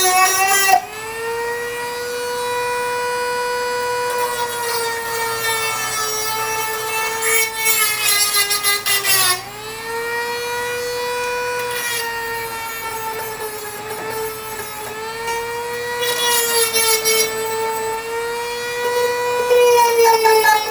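Dremel rotary tool running at high speed with a steady, high-pitched whine. It grinds rust out of rotted car-body sheet metal. Its pitch sags twice as it is pressed into the metal and then recovers, with stretches of rasping grinding noise.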